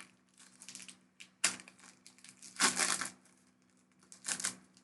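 Foil booster-pack wrapper crinkling and tearing open in three short bursts, the longest and loudest about halfway through.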